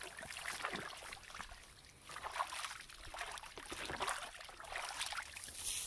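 Water sloshing and splashing in a plastic stock tank as a hand rubs and scoops it over a soaking dog's back, in small irregular splashes.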